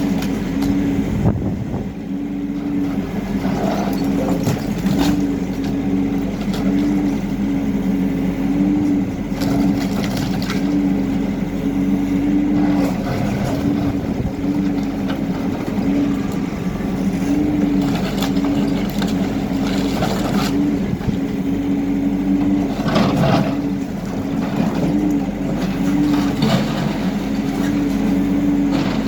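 HIDROMEK K4 Alpha backhoe loader's diesel engine running steadily, its tone pulsing in short swells, with scattered knocks and cracks of breaking building debris.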